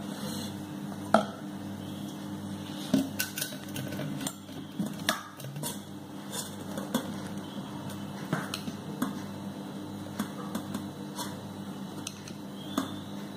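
A steel spoon scraping and knocking against stainless-steel bowls as thick dosa batter is scooped from one bowl into another, with irregular clinks, the sharpest about a second in and near three seconds. A steady low hum runs underneath.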